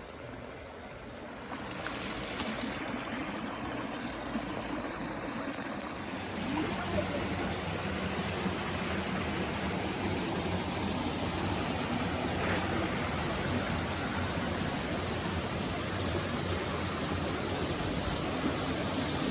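Creek water running over rocks, a steady rushing that grows louder about two seconds in and then holds.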